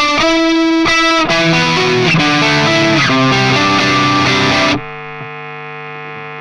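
Squier Affinity electric guitar played through distortion, a run of shifting notes and chords. About five seconds in it cuts off abruptly, leaving a quieter steady held tone.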